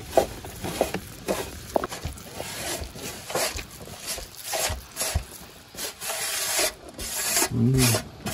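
A hand squeezes and kneads an oil-moistened spice paste on a steel plate, making irregular wet rubbing and squishing strokes against the metal. A short pitched call is heard near the end.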